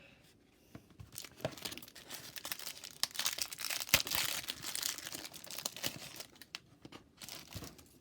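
Irregular crinkling and tearing of a trading-card pack wrapper being ripped open and handled, with one sharp snap about four seconds in.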